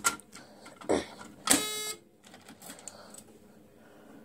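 A few sharp clicks, then one short electronic buzzer beep about one and a half seconds in, from a fire alarm control panel being operated.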